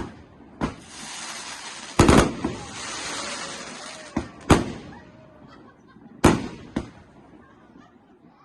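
Aerial fireworks going off: about seven sharp bangs of bursting shells at irregular gaps of half a second to two seconds. Between about one and four seconds in there is a long crackling hiss from crackle effects.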